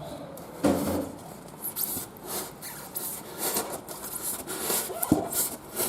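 Irregular scraping and rubbing on a plastic storage container's lid, with a few sharper clicks, as the lid is worked by hand to take a fan in the hole cut into it.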